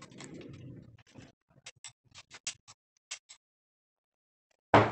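A series of sharp metallic clicks and taps from handling a break-barrel air rifle with its barrel broken open, then a loud thump near the end.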